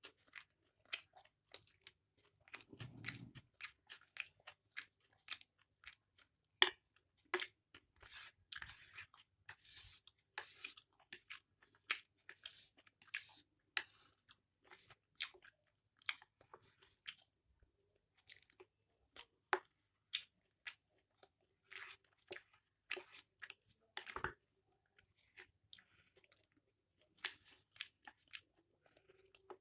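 Close-miked chewing of mixed chow mein: a dense run of short, sharp wet mouth clicks and smacks, several a second. There is a brief low hum about three seconds in.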